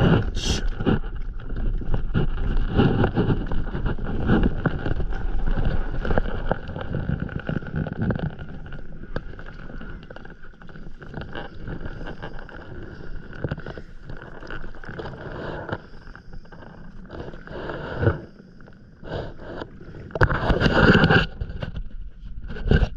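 Water splashing and lapping against a stand-up paddleboard as it is paddled from a seated position, with knocks and rustles of gear on the deck. It is louder for the first several seconds, with a sharp knock near 18 seconds and a loud splash or rustle around 20 seconds.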